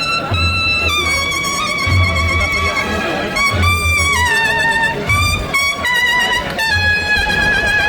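Procession band playing a slow march: brass instruments carry a held, wavering melody over low drum beats that come in short bursts.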